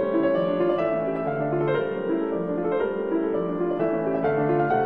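Background music: gentle piano playing a steady stream of notes.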